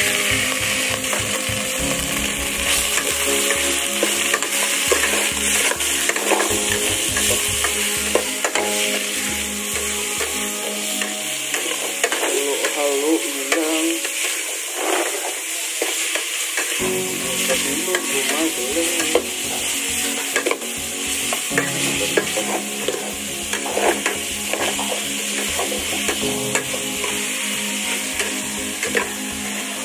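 Raw ground pork sizzling as it fries in hot oil in an aluminium pot, while a metal ladle stirs it with repeated scrapes and knocks against the pot.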